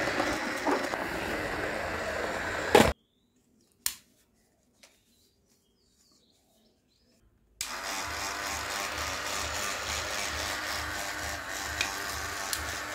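Small electric toy motor whirring steadily as it spins a toy helicopter's top rotor. It stops abruptly with a loud click about three seconds in, leaving near silence with a couple of faint clicks. The whirr starts again at about seven and a half seconds, with a low, even pulsing under it.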